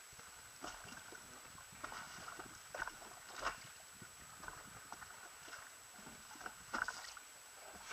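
Small waves slapping and knocking irregularly against the tube of a rigid inflatable boat drifting on a choppy sea, under a thin steady high-pitched whine.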